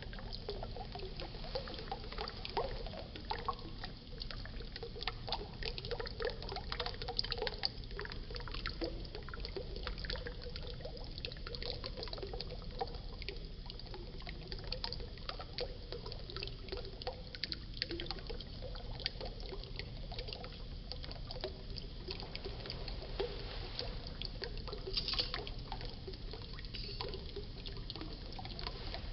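Waterfall: water pouring and splashing steadily, with many small splashes and gurgles.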